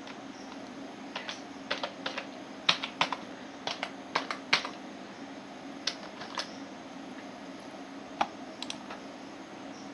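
Typing on a computer keyboard: a quick, irregular run of key clicks from about a second in, then a few scattered clicks later, over a steady low hum.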